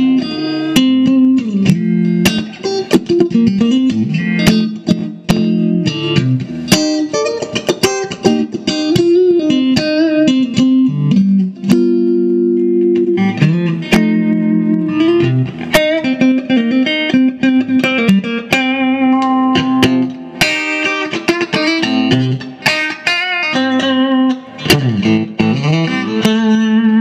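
1959 Fender Stratocaster electric guitar played through an amplifier: a continuous run of picked single-note lines and chords, with string bends that swoop the pitch down and back up.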